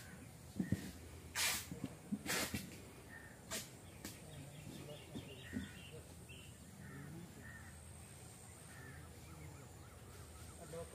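Faint bird calls, crow-like caws among them, over a low steady background hum. A few sharp clicks come in the first few seconds.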